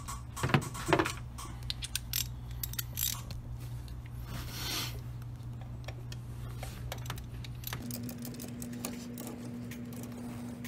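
Hand ratchet clicking in irregular runs while tightening bolts, over a steady low hum. A higher steady tone joins about three-quarters of the way through.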